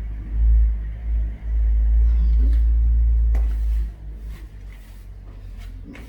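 A loud low rumble that drops away about four seconds in, followed by a few light clicks and knocks.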